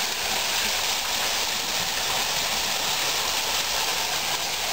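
Small waterfall: thin streams of water falling down a rock face and splashing into a shallow pool, a steady, even rush of water.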